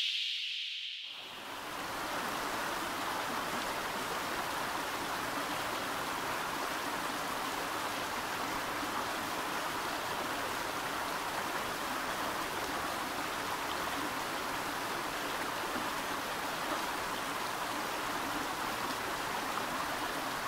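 A high hiss fades out in the first second, then a steady, even rushing noise like running water carries on without change.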